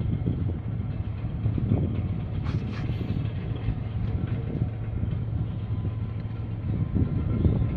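Wind buffeting the microphone: a steady low rumble that flutters unevenly.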